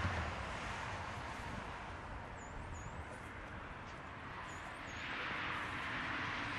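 Road traffic going by: one vehicle passing and fading at the start, another swelling in about five seconds in, over a low rumble. A few faint, high bird chirps sound in the middle.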